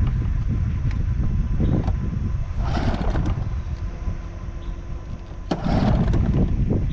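Bass Tracker outboard motor being cranked over twice without catching: two short rasping bursts over a steady low rumble. The engine refuses to start, which the owners take for a flooded engine.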